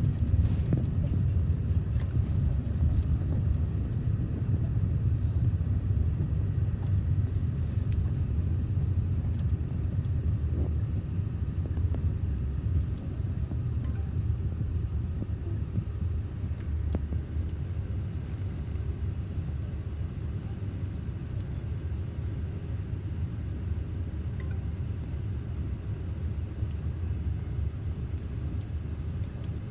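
Low rumble of road traffic, easing off slowly over the second half.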